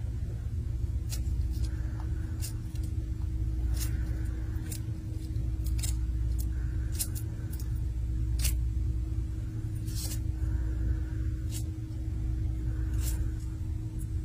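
A steady low hum and rumble, with scattered sharp clicks.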